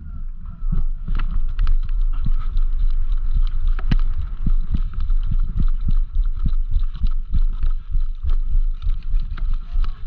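Running footsteps with gear and the camera jostling on the runner's body: heavy, even thumps about twice a second, mixed with rattles and clicks.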